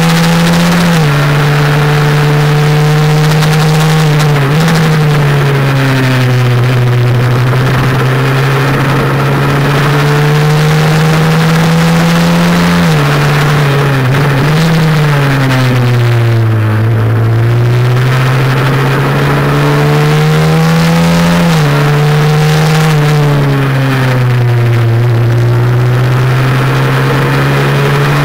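Honda NSF100's single-cylinder four-stroke engine running hard on track. Its pitch climbs steadily and drops sharply three times as it changes up, and it sinks twice as the bike slows for corners before climbing again.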